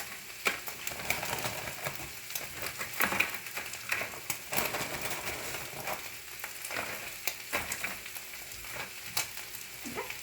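Ground beef sizzling in a cast-iron skillet: a steady frying hiss with frequent small pops and crackles.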